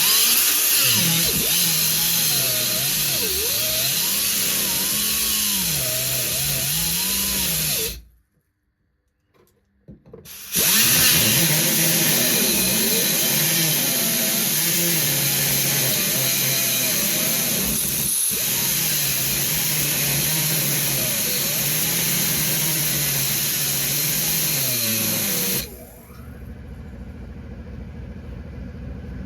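Power cut-off tool cutting sheet metal on a car body, in two long runs with a pause of about two seconds between. Its pitch dips and recovers as it loads in the cut. Near the end it stops and a quieter steady low rumble carries on.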